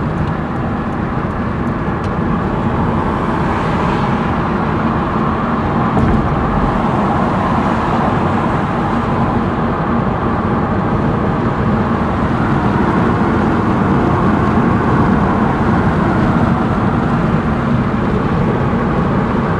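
Loud, steady rush of wind buffeting through an open car window at highway speed, mixed with road noise, heard inside the cabin.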